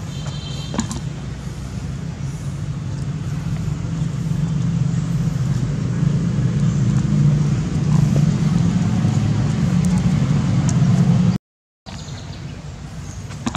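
Steady low engine rumble, like a motor vehicle running, growing gradually louder until it cuts out abruptly for a moment and comes back quieter.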